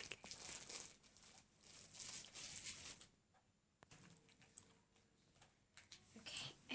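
Plastic toy packaging being handled and opened: faint crinkling in short spells, with a few small clicks.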